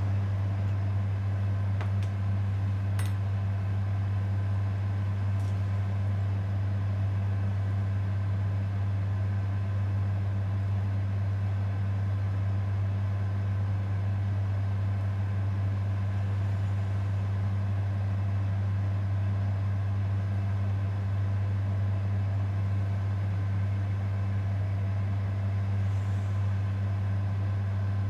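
A steady low hum running unchanged throughout, with a few faint clicks in the first few seconds.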